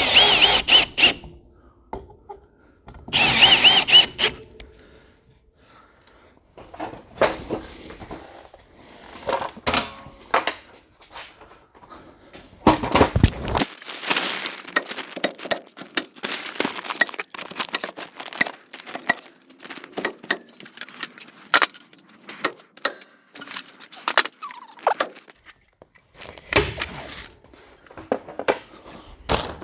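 A cordless drill driving screws: two short whining bursts near the start and another near the end. In between, 4 mil polyethylene vapor-barrier sheeting crinkles and rustles, with scattered knocks and clicks.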